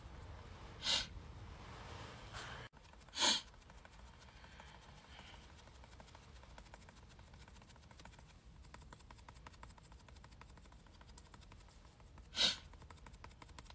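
Three short, sharp breaths through the nose, about a second in, about three seconds in and near the end, over a faint low rumble.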